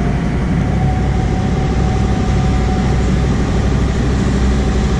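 Fishing boat's engine running steadily while under way, a loud, even low rumble with a faint steady whine above it.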